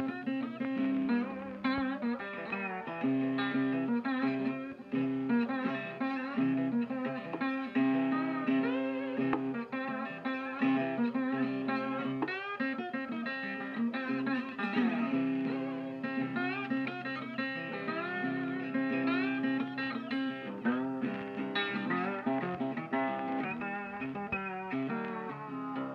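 Background music: a guitar-led instrumental track with plucked and strummed notes.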